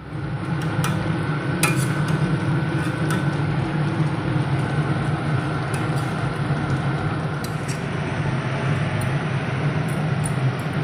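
A steady low rumble while the curry cooks in a steel kadai on the gas stove, with a few short metallic clinks of the spatula against the pan scattered through it.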